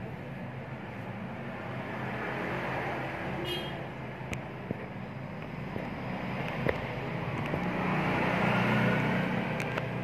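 A steady low motor hum over a rumbling background, growing louder about eight seconds in, with a few faint clicks.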